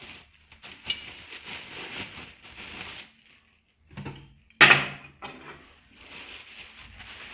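Plastic packaging crinkling as wrapped drill-press parts are handled, with a sharp knock about four and a half seconds in, the loudest sound, as something hard is set down or bumped.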